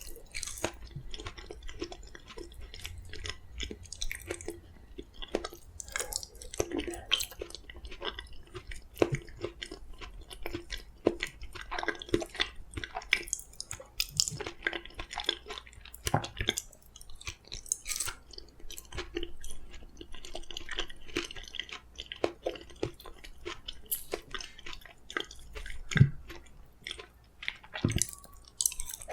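Close-up chewing of soft steamed sweet pumpkin: irregular wet mouth clicks and smacks. A steady low rumble sits underneath, and one sharper click comes near the end.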